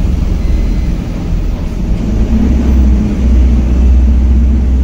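Ashok Leyland AVTR 2825 tipper's 5.7-litre four-cylinder diesel engine pulling under load as the truck climbs a slope, a deep steady rumble that grows louder about two seconds in.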